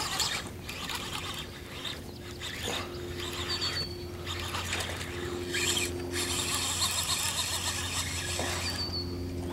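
Fishing reel being cranked to bring in a hooked fish, a steady mechanical sound.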